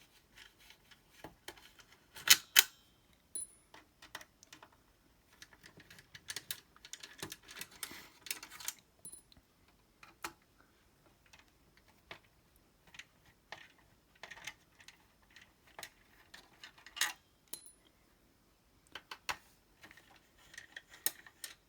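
A Torx T10 screwdriver backing screws out of a plastic console case, with scattered small clicks, taps and scraping of metal and plastic. Two sharp clacks about two seconds in are the loudest.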